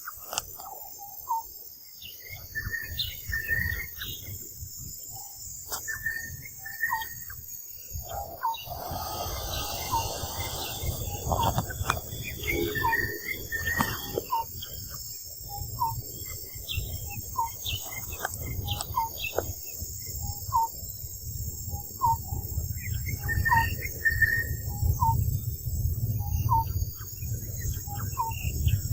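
Outdoor ambience of insects droning steadily at a high pitch, with many short chirping calls repeated throughout, over a low rumble that grows stronger partway through.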